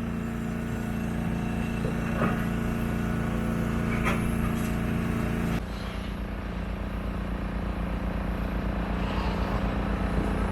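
Diesel engine of demolition machinery running steadily, its note dropping slightly about halfway through, with a couple of faint knocks.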